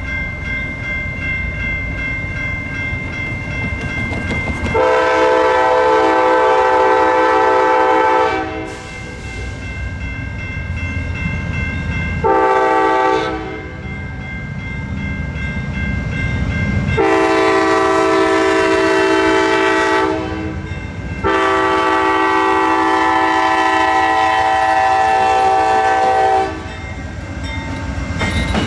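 Diesel locomotive's multi-chime air horn sounding four blasts: a long one, a short one, then two more long ones, the last the longest. Underneath is the steady low rumble of the train running.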